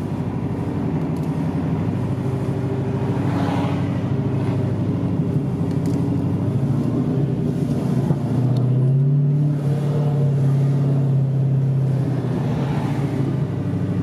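Car engine running steadily under way, a low even drone; about eight seconds in the revs pick up a little and then ease off again near the end.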